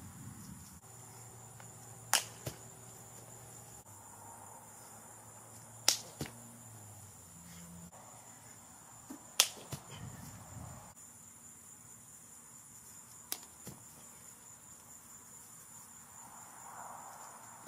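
Steady high-pitched insect chorus, with a few sharp knocks a few seconds apart standing out above it.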